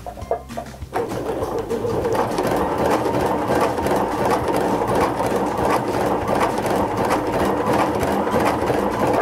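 Baby Lock Sashiko sewing machine running steadily and stitching a sashiko-style running stitch through fabric, set for short stitches spaced far apart. It starts about a second in and stops near the end.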